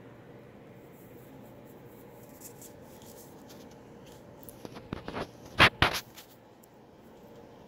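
Baby eastern gray squirrel grooming, licking and nibbling at its front paws close to the microphone: faint hiss, then a short cluster of wet clicks and scratches about five seconds in, the loudest two close together.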